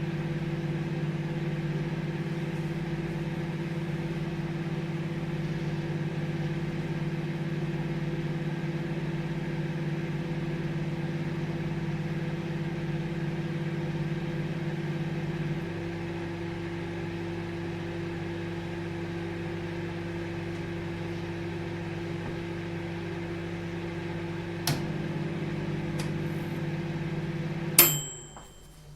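Microwave oven running with a steady hum, which drops a little lower and quieter about halfway through. Near the end there is a light click, then the hum cuts off with a sharp click and a short high-pitched beep as the cycle ends.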